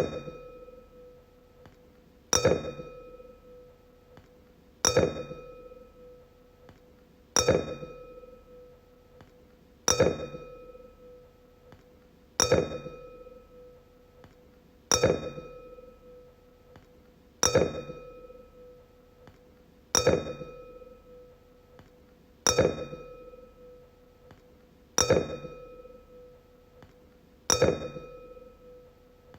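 A wine glass tapped and left to ring, about every two and a half seconds, twelve times. Each tap gives a clear, bell-like tone with higher overtones that rings out over a second or two.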